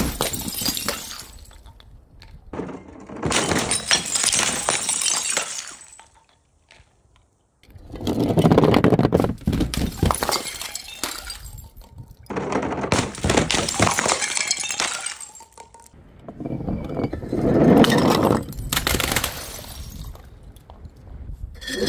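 Glass bottles smashing one after another: about four crashes, each followed by a few seconds of rattling, tinkling shards.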